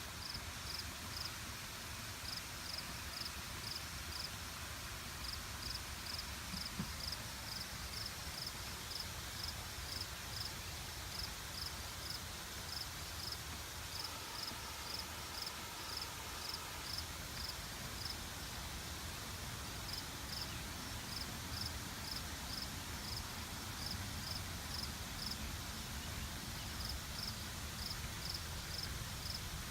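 An insect chirping in short high pulses, a few a second, in runs separated by brief pauses, over a steady low background rumble.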